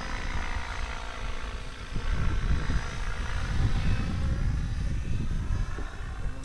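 Radio-controlled helicopter flying, its motor and rotor whine shifting up and down in pitch as it manoeuvres, over a low rumble.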